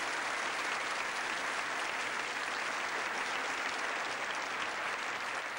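Studio audience applauding, a steady dense clapping that eases slightly near the end.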